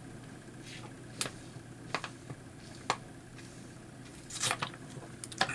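A few soft clicks and taps of sleeved trading cards being handled on a playmat, with a short rustle about four and a half seconds in, over a faint steady hum.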